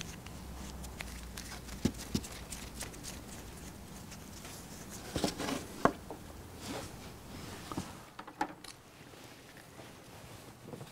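Scattered light clicks and taps of metal throttle linkage rods and ball-socket ends being handled and fitted, with a cluster of sharper clicks about five to six seconds in, over a faint low hum that drops away about eight seconds in.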